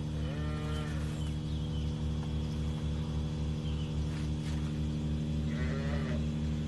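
Young dairy calves calling, two short bleating bawls, one about half a second in and another near six seconds, over a steady, pulsing machine hum.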